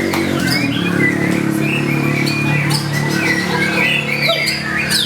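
White-rumped shama (murai batu) singing a fast, varied song of quick whistled slides mixed with harsh chattering notes, over a low steady drone.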